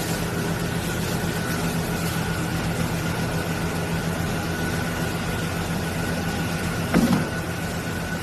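Gaabor MG-15M01A electric meat grinder/food processor's motor running steadily, a low hum with a thin high whine over it. A brief knock about seven seconds in.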